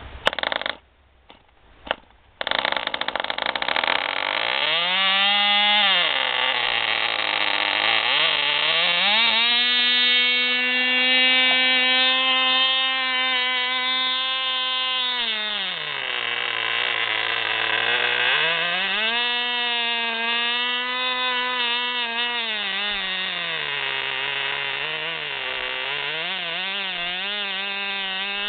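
Tiny glow engine of a Cox P-40 Thimble Drome model plane hand-started: a few quick flicks of the propeller, then it catches about two and a half seconds in and runs with a high buzz. Its speed climbs, sags and climbs again several times while it runs.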